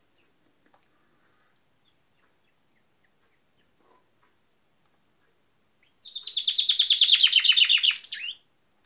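Common chaffinch singing one loud song of about two and a half seconds: a rapid run of repeated notes ending in a short flourish.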